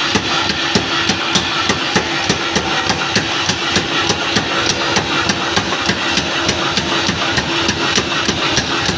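Forging hammer striking metal in a fast, even rhythm of about four blows a second, over a steady machine hum.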